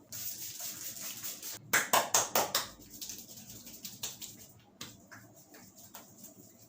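A barber's head massage: a rustling hiss of hands working over the hair, then a quick run of about six sharp slaps as the hands strike the head in a rapid tapping stroke, followed by softer scattered taps.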